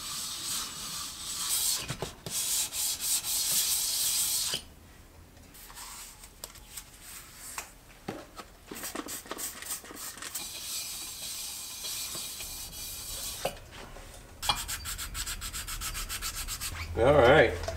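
A Puch moped cylinder being lapped flat by hand, scraping back and forth over fine 1000–2000 grit sandpaper on a surface plate to level its epoxy-filled face. The strokes go quiet for a moment a few seconds in, then come faster and shorter near the end.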